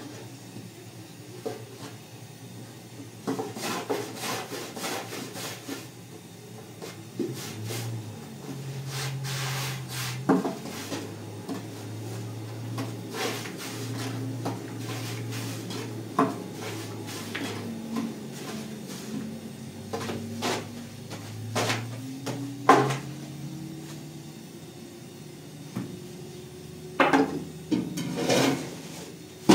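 Irregular knocks, clatters and rubbing of household things being handled, loudest in a burst of knocks near the end, over a low steady hum.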